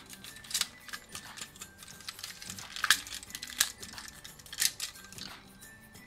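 Plastic parts of a Hasbro Optimus Prime transforming toy being moved and snapped into place, giving a few sharp clicks at irregular intervals.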